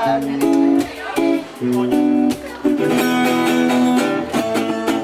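Acoustic guitar strumming chords with no voice over it, getting quieter near the end.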